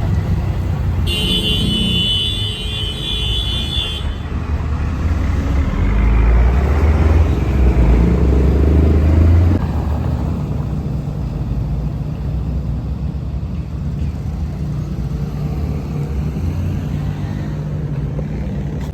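Street traffic with vehicles passing; one passes close and loud between about six and nine and a half seconds in. A high, steady, multi-pitched tone sounds for about three seconds starting a second in.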